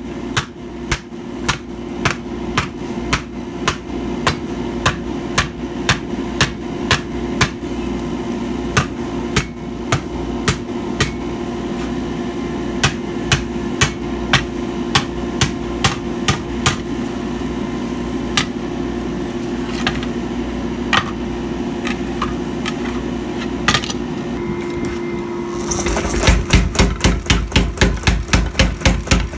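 Hand hammer striking a red-hot steel plate on an anvil in uneven blows, about one or two a second and sparser after the first ten seconds, over a steady hum. About 26 seconds in, a power hammer takes over with a fast, even run of blows, several a second and louder.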